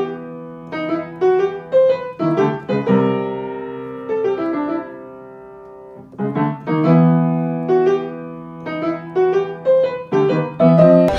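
Background piano music: a tune of struck notes and chords, with one long held chord fading out in the middle before the tune picks up again.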